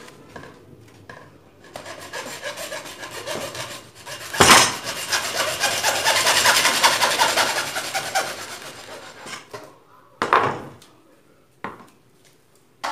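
Hacksaw cutting through a white PVC pipe: strokes start about two seconds in and grow louder, with a sharp knock a couple of seconds later, then the sawing stops about nine seconds in. A few knocks follow as the saw and the cut pipe are set down.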